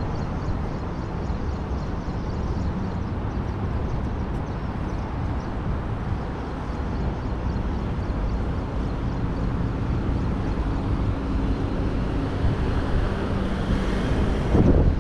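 Street traffic: a steady rumble of car engines and tyres, swelling briefly near the end as a vehicle passes close by.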